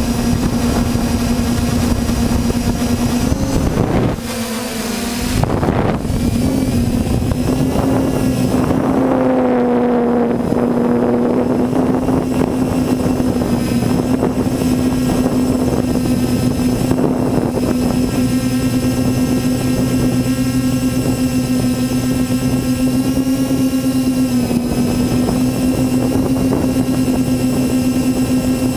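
Multirotor drone's electric motors and propellers humming steadily, heard from the onboard GoPro, with wind hiss. The hum dips briefly about four seconds in as the throttle eases, then picks back up.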